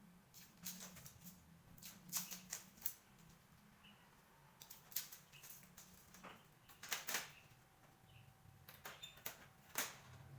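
Scattered light clicks and taps, irregular and unevenly spaced, over a faint low hum: small hard parts or tools being handled during the repair.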